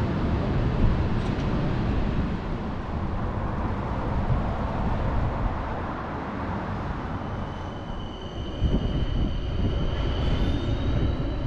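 Helsinki tram running with a steady low rumble; about halfway through, high whining tones come in, one of them rising in pitch near the end.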